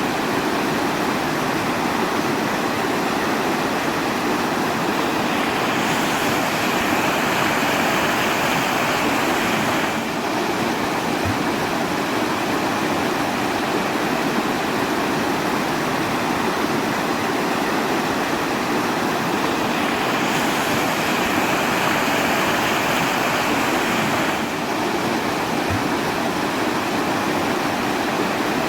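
Steady rushing water, a dense even wash of noise with no distinct splashes. It is a loop that repeats about every 14 seconds, with a faint low blip each time round.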